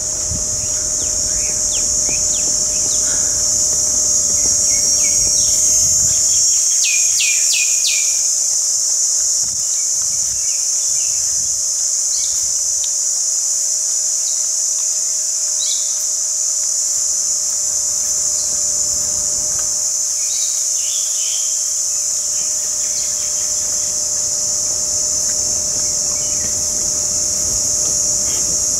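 A steady, high-pitched drone of insects fills the whole stretch, with birds chirping now and then over it, including a quick run of chirps about seven seconds in.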